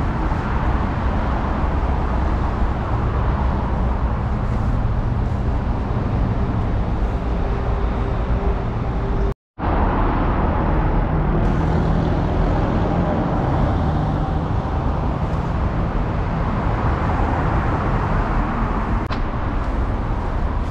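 Steady road traffic noise from passing vehicles, broken by a brief total silence about nine seconds in.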